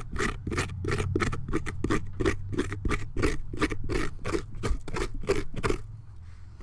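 Pumpkin's inside wall being scraped out by hand, in quick, rhythmic scratchy strokes, about four a second, that stop about six seconds in.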